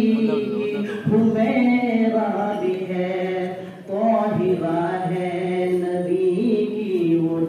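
A solo male voice singing a naat (Urdu devotional poem in praise of the Prophet) into a microphone, in long held notes that bend between pitches, with short pauses for breath about a second in and about four seconds in.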